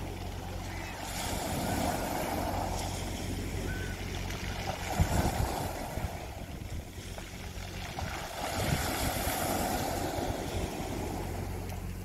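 Small sea waves breaking on a pebble beach and washing back over the stones, three times, with a brief crackle of stones about five seconds in. A steady low hum runs underneath.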